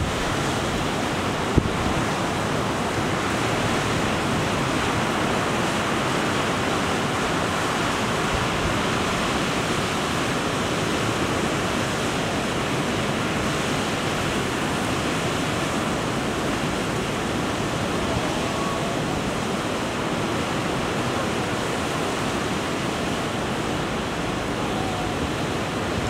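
Storm surf on Lake Ontario breaking over a pier's wooden breakwall in strong wind: a steady, unbroken rush of waves and wind.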